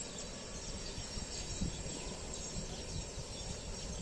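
Wind rumbling on the microphone at the water's edge, with insects such as crickets chirring steadily in the background.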